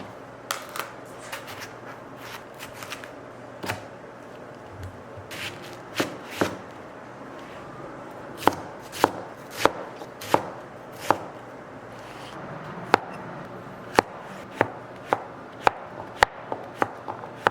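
Kitchen knife chopping on a cutting board: sharp knocks, scattered at first, then a slow, fairly steady rhythm of one or two a second from about halfway through.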